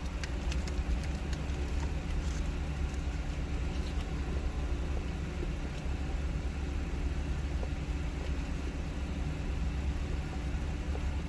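Parked car's engine idling, heard from inside the cabin as a steady low hum, with a few faint clicks from handling and biting into a burger.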